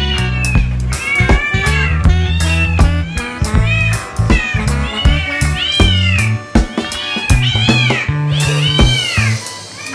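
Cat meows, many short calls that rise then fall in pitch, heard over background music with a steady bass line.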